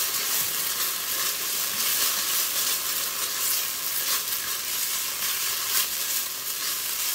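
Diced onion and minced garlic sizzling steadily in hot olive oil in an enamelled pot, with a spatula stirring and scraping them around.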